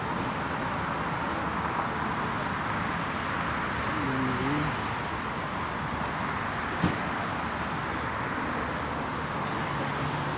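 Many small birds chirping continually over the steady hum of an open city square. A single sharp click about seven seconds in.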